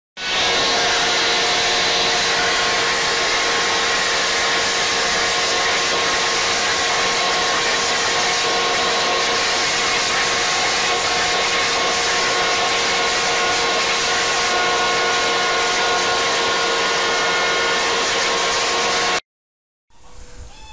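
Corded electric leaf blower running steadily at full power, a loud rushing whine with a few held tones, blowing at a dog; it stops abruptly near the end.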